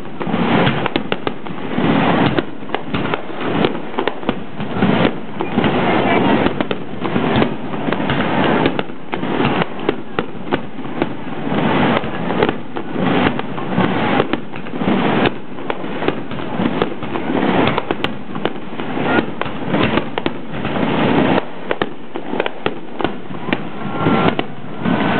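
Fireworks display: aerial shells bursting in a rapid, continuous barrage, many bangs a second with no pause.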